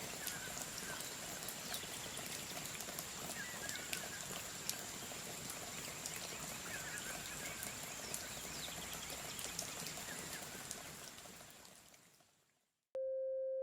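Seaside ambience: a steady wash of waves with small crackling clicks, a thin steady high whine, and a bird giving a few short chirps now and then. It fades out about eleven seconds in, and near the end a pure steady 528 Hz tone begins.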